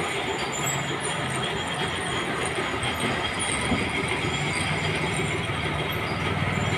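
Continuous, rapid mechanical clatter from running machinery, steady in level with no single knock standing out.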